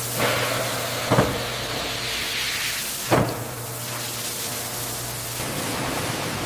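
Processing-line noise: a steady hiss over a low machine hum, with two sharp knocks about one second and three seconds in.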